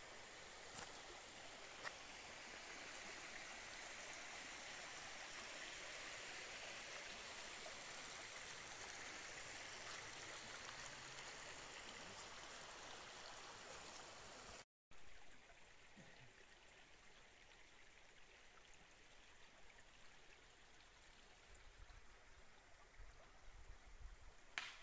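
Faint, steady trickle of a shallow creek running over stones, a soft hiss that drops quieter after a brief cut about halfway through. A few low bumps come near the end.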